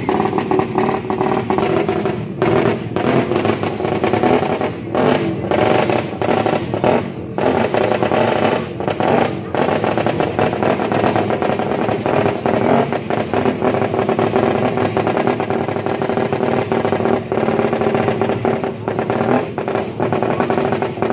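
Motorcycle engines running steadily, with the voices of a large crowd.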